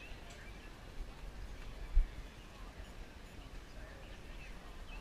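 Faint outdoor ambience with a few scattered bird chirps and one low thump about two seconds in.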